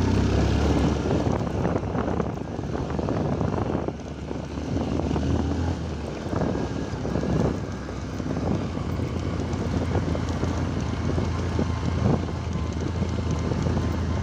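A vehicle engine running steadily as it drives over a rough, broken road, with wind buffeting the microphone and a few sharp knocks from the jolting.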